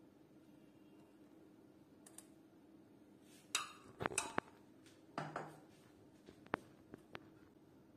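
Dishes knocking and clinking a few times over about two seconds, followed by two or three sharp single clicks.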